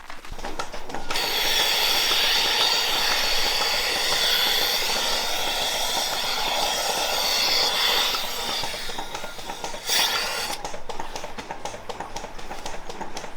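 A machine running with a steady hissing rush and several steady whining tones. It starts about a second in and cuts off about ten seconds in with a knock, leaving a quieter rustle.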